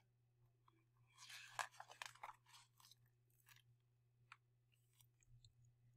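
Faint rustling and crinkling of paper as a picture book's page is handled and turned, with a single light click a little over four seconds in.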